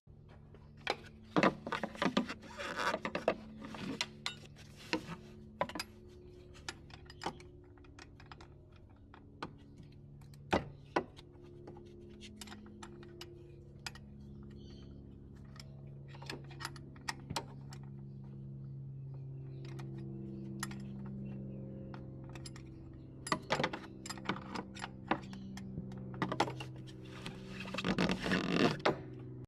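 Hand tools and metal parts clicking and clinking in scattered sharp taps, busiest near the start and again near the end, during work on a car's starter motor. Soft background music with slow, held notes plays underneath.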